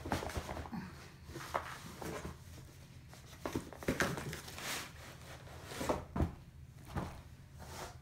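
Shrink-wrapped cardboard boxes being handled and set down: irregular plastic crinkling and rustling with light knocks.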